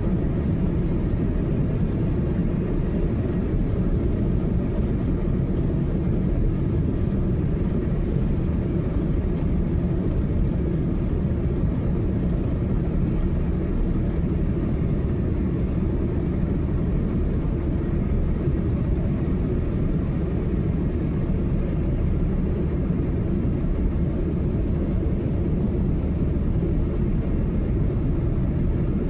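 Car driving at highway speed: steady low rumble of tyre and engine noise.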